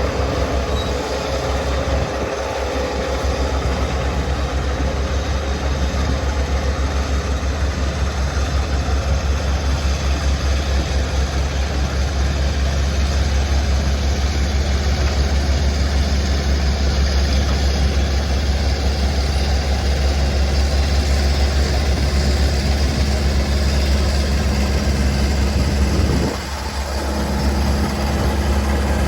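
Classic Caterpillar D8 crawler tractor's diesel engine running steadily with a deep, pulsing low rumble while it works a scraper box stripping soil. The sound dips briefly near the end, then picks up again.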